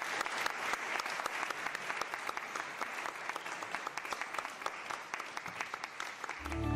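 Audience applauding, a dense, steady patter of many people clapping. Music comes in just before the end.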